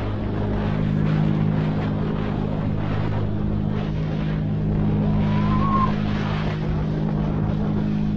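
Background music: a sustained low drone chord held steadily, with one short rising glide about five seconds in.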